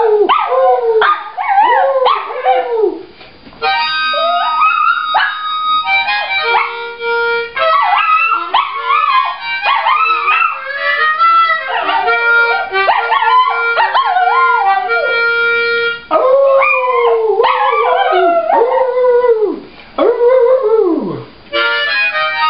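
A harmonica plays held chords while a small Shih Tzu howls along in wailing notes that slide up and down in pitch. The dog howls alone at the start and again after the harmonica stops, about two-thirds of the way through. The harmonica comes back in near the end.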